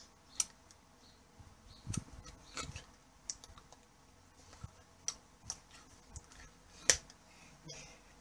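Scattered small clicks and soft taps from a person signing, irregular and about eight in all, the sharpest near the end.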